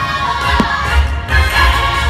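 Fireworks show soundtrack music playing loudly, with one firework bang a little over half a second in.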